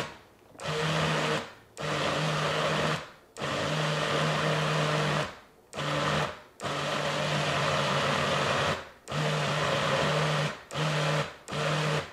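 BlendJet portable blender's motor run in repeated pulses: about nine bursts of steady whirring of varying length, from half a second to a couple of seconds, each starting and stopping abruptly, as it blends fruit and protein powder.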